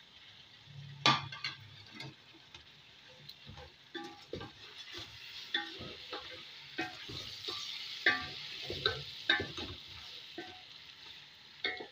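A slotted spatula stirring chicken, tomatoes and spices in a metal pot, with repeated scrapes and taps against the pot and a sharp knock about a second in, over the steady sizzle of the food frying in oil.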